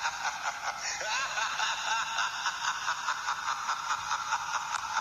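Eerie horror sound effect with a fast, steady pulsing, read by the tags as snickering laughter.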